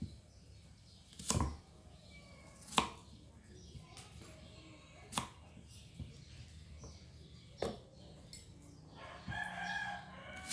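Kitchen knife striking a thick wooden chopping board while an onion is peeled and cut: about seven sharp, irregularly spaced knocks, the loudest about three seconds in.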